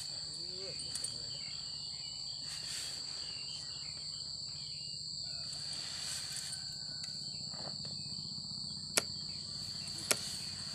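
Steady chorus of crickets or cicadas, a continuous high-pitched whine, with two sharp clicks about a second apart near the end.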